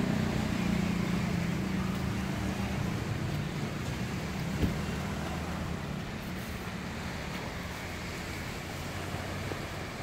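A motor engine's steady hum, loudest at first and slowly fading away as it moves off, with one sharp click about four and a half seconds in.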